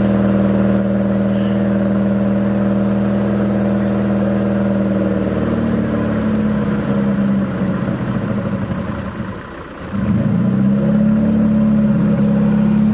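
Mk2 Ford Fiesta's engine running on a held throttle after six months standing. The revs sag about eight seconds in until it nearly stalls, then pick up again about ten seconds in: it won't idle and only keeps running when revved.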